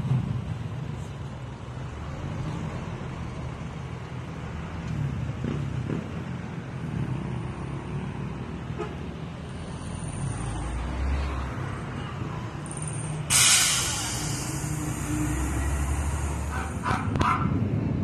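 Steady low outdoor rumble, with a sudden loud hiss about thirteen seconds in that fades away over a few seconds.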